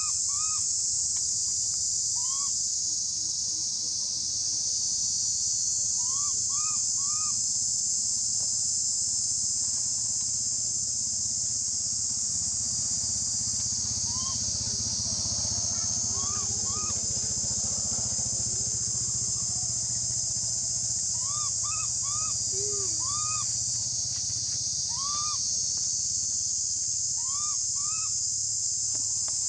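Steady high-pitched chorus of insects, with short chirping calls scattered over it, mostly in twos and threes.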